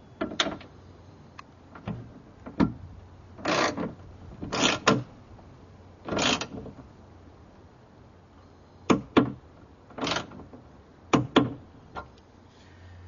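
Socket ratchet clicking in short runs as the hood hinge nuts are tightened, with a few sharp single clicks between them.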